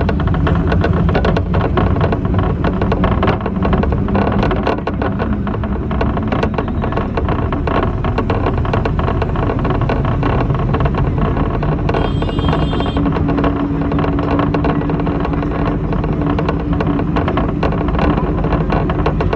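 A moving bus rattling and clattering over a steady engine rumble, with many quick knocks and rattles. A brief high-pitched tone sounds about twelve seconds in.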